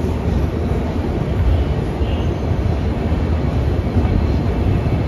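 Steady low rumble of a passenger express train rolling slowly out along the platform, heard from on board the moving coach.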